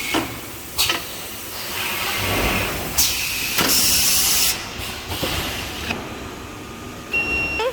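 Toilet-paper rewinding machine running, with sharp clacks and a burst of hiss lasting about a second near the middle. A short high tone sounds near the end.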